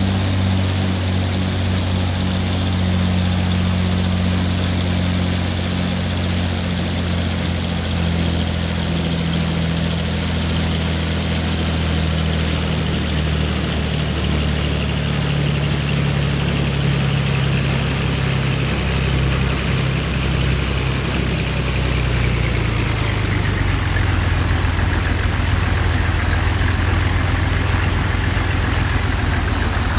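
Cessna Stationair amphibious floatplane's piston engine and propeller running steadily, its pitch drifting slowly lower, with a wide rushing hiss over the engine tone. About three-quarters of the way through, the hiss falls away and the low engine tone grows stronger.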